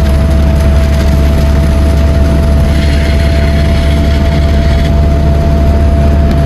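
Heavy rain pelting a moving car, heard from inside the cabin over a steady low road rumble, with a thin steady whine running underneath.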